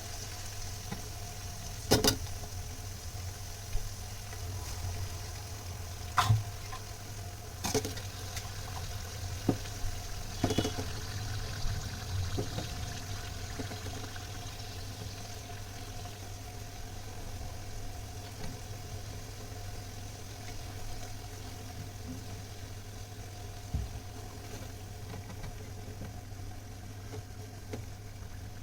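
Food frying gently in a pan, a steady low sizzle over a constant hum, with a few sharp clinks or knocks in the first half.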